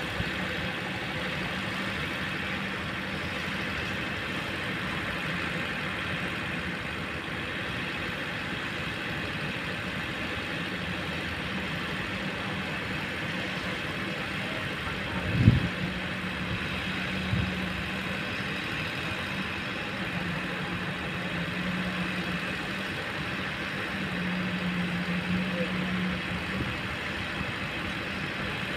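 Kobelco long-boom excavator's diesel engine running steadily, swelling slightly under load near the end. A single heavy thump sounds about halfway through, followed by a smaller one a couple of seconds later.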